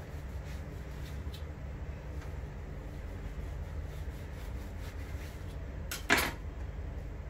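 Kitchen knife cutting through a block of shredded kunafa dough on a wooden chopping board: faint light ticks and rustling over a steady low hum, then one sharp knock about six seconds in.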